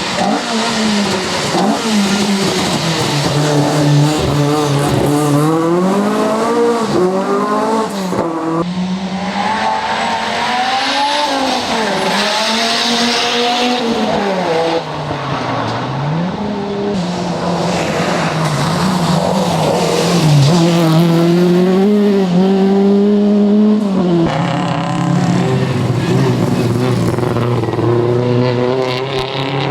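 Classic rally car engines revving hard, the pitch climbing and dropping again and again through gear changes as the cars accelerate and brake.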